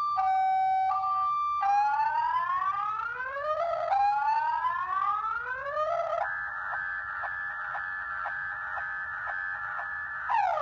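Viper car alarm siren in panic mode, cycling through its tones: a two-tone hi-lo for about a second and a half, then two long rising whoops, then a steady pulsing tone from about six seconds in, switching to fast falling chirps near the end.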